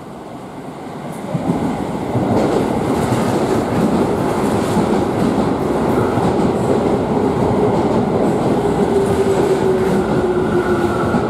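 Keio 9000 series electric train pulling into a station platform. The running noise of its wheels on the rails swells sharply about a second and a half in, then holds as a steady rumble as the cars pass close by. Near the end a whine drifts slightly lower as the train slows to a stop.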